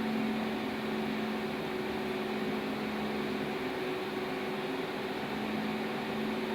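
Steady drone of running boiler-plant machinery, such as motors and fans: an even rushing noise with a constant two-tone hum that does not change.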